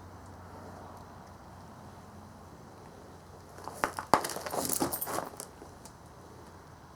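Parts and packaging being handled: two sharp knocks just under four seconds in, then about a second and a half of rattling and crinkling.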